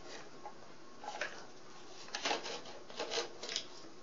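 Light rubbing and scraping of balsa-wood model parts being handled and fitted together, in several short scuffs.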